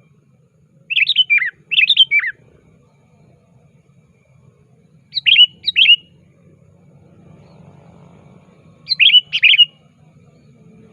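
Male sooty-headed bulbul calling: three pairs of short, loud whistled phrases, each pair about four seconds after the last, each phrase falling in pitch.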